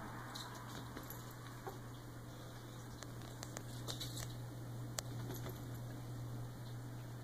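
A cat playing under a curtain: light patter and scattered clicks of its paws and claws on carpet and curtain fabric, the loudest click about five seconds in, over a steady low hum.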